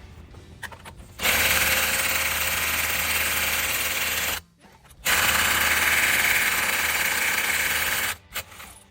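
A power tool running in two bursts of about three seconds each, stopping abruptly between them.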